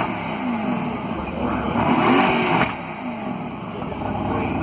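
Mercedes-AMG GT R's twin-turbo V8 blipped from idle: the revs rise and fall over about a second, with one sharp exhaust pop as they drop, then it settles back to a burbling idle.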